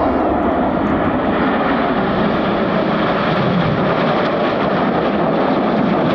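Red Arrows' BAE Hawk T1 jets, each with a single Adour turbofan, flying by in formation: steady, loud jet engine noise.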